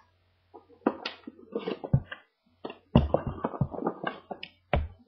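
Irregular taps, knocks and rustles of paper and cardboard being handled while unpacking a phone box, with a few sharper knocks about one, two and three seconds in and again near the end.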